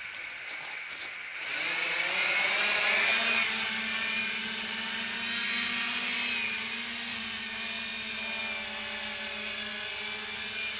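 MJX Bugs 3 quadcopter's brushless motors and propellers spinning up about a second and a half in, then a steady, many-pitched whine as the drone hovers over the water.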